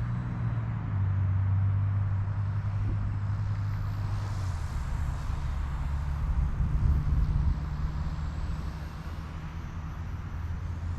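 Eachine E119 micro RC helicopter in flight, its main and tail rotors whirring with a steady low hum whose pitch shifts a couple of times as the motor speed changes.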